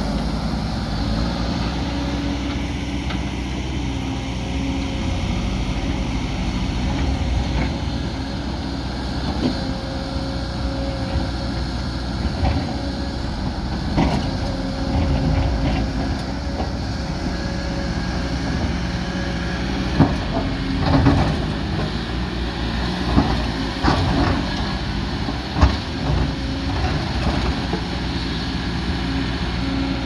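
Diesel engines of a Kobelco crawler excavator and a JCB backhoe loader running steadily while they dig and push earth, with scattered knocks and clanks of buckets and rock, several sharp ones in the second half.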